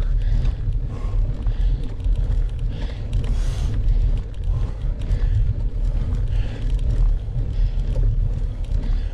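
Low wind buffeting and tyre-on-road rumble on a bike-mounted camera's microphone as a cyclist climbs a very steep hill, with the rider's heavy breaths coming through every second or two.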